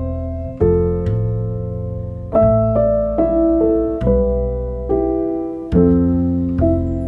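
Slow, calm piano music: chords struck about once a second and left to ring out.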